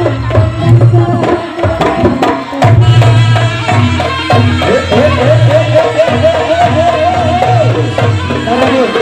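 Live Reog ensemble music: hand drums beat in a steady pulsing rhythm with deep strokes under a melody, which turns into a quick wavering, trilling line through the middle.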